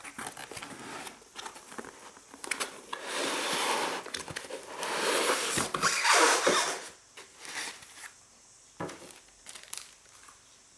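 A cardboard model box being opened and its white foam packing lifted out: foam rubbing and scraping against cardboard in two longer rustling stretches, with small knocks and taps around them.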